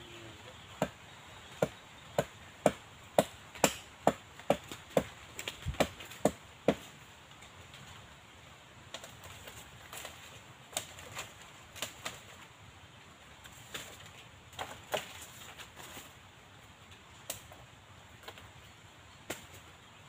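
A run of sharp knocks, about two a second for the first six or seven seconds, then scattered single knocks.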